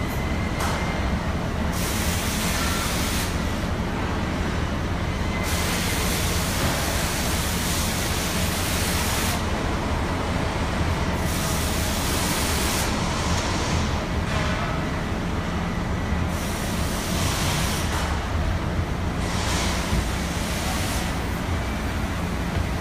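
Truck assembly-plant noise: a steady low machinery hum, with about six long compressed-air hisses that start and stop suddenly every few seconds.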